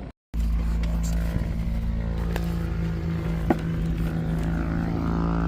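A small aircraft's piston engine running steadily at a constant speed, with a sharp click about three and a half seconds in.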